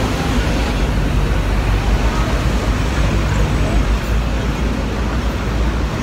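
Steady city street traffic noise: passing road vehicles heard as a continuous low hum.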